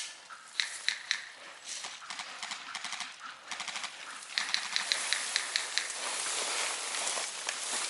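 Airsoft guns firing on full auto, heard as scattered clicks and quick runs of rapid clicking, densest about halfway through, over a rising hiss of rustling.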